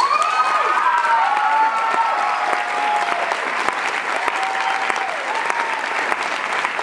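Theatre audience applauding and cheering, with rising and falling whoops mostly in the first few seconds.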